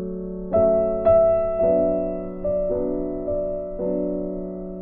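Background music: slow, gentle piano, with notes and chords struck about once a second and left to fade.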